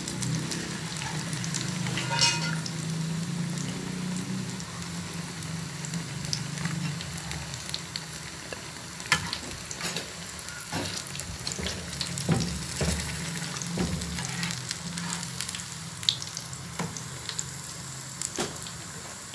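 Besan-battered roti pieces deep-frying in hot oil in a pan, a steady sizzle. A slotted spatula knocks and scrapes against the pan now and then as the pieces are turned and lifted out.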